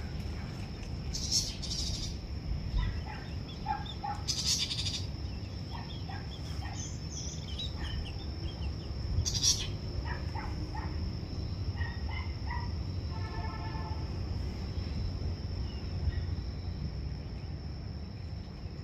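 Birds chirping in scattered short calls over a steady high-pitched insect drone and a low background rumble.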